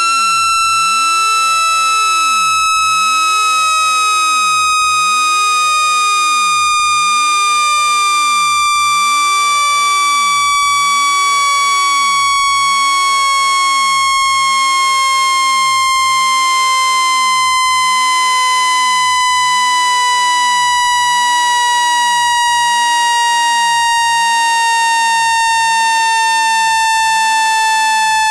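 Synthetic speaker-cleaning tone meant to vibrate trapped water out of a phone speaker: a loud, buzzy electronic tone slowly falling in pitch throughout.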